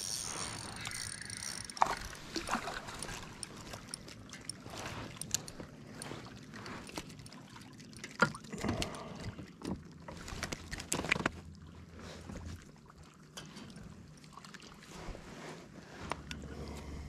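Handling noises in a fishing kayak as a small bass is reeled in on a spinning rod and landed by hand: scattered clicks and knocks of reel, rod and hull, with a thin high tone in the first second or so.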